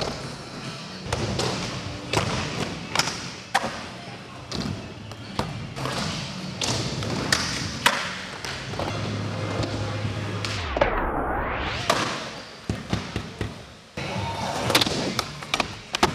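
Skateboards rolling over the skatepark's concrete floor and ramps, with repeated sharp clacks and thuds of boards popping, landing and hitting the ramps and ledges.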